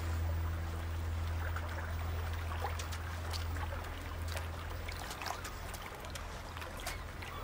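Small wet splashes and sharp clicks of pebbles as a raccoon paws and wades through shallow water on a stony shore, over a low steady hum that fades out a little past halfway.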